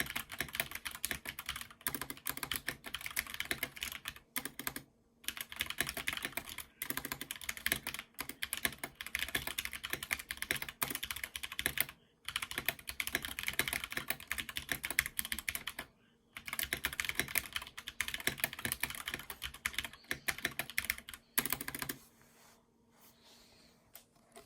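Fast typing on a Snowfox DK61 mechanical keyboard with Holy Panda tactile switches: dense runs of keystroke clacks broken by short pauses, stopping shortly before the end.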